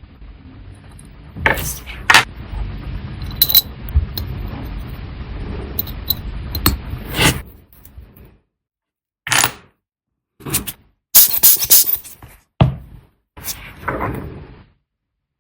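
Small metal watchmaking tools and watch parts clicking, tapping and scraping on a workbench. There are scattered sharp clicks over a steady low background at first, then from about eight seconds in a string of separate clicks and taps with silence between them.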